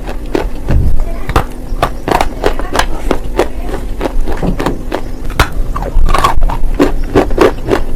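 Close-miked biting and chewing of non-roasted nakumat: sharp crisp crunches at about two to three a second, with a quicker run of louder crunches near the end.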